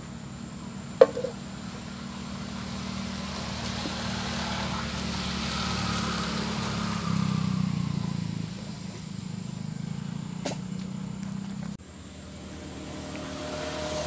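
A motor vehicle passes on a nearby road: a steady low engine hum swells up and fades over several seconds. There is a sharp click about a second in.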